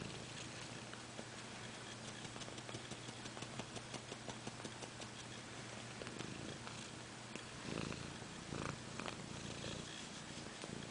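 A sleeping pet snoring softly: a steady low rasp of even little pulses, with a few louder breaths about six and eight seconds in.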